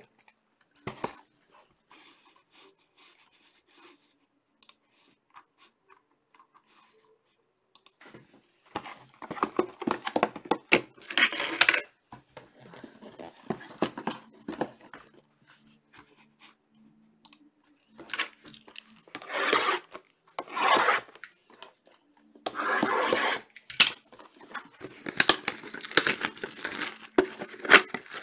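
Trading card packs being torn open: a few quiet seconds of light handling clicks, then repeated bursts of wrapper tearing and crinkling, each a second or two long.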